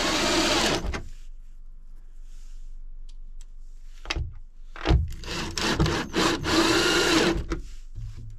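Power tool cutting a speaker hole in a boat panel in short runs: one run stops about a second in, a few light knocks follow in a quieter stretch, then several more cutting runs come in the second half.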